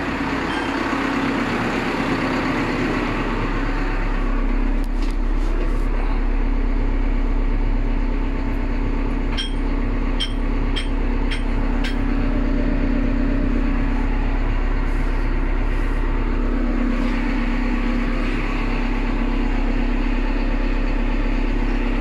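Caterpillar backhoe loader's diesel engine running steadily at idle, heard from inside the cab. About ten seconds in come five quick metallic clinks, roughly two a second.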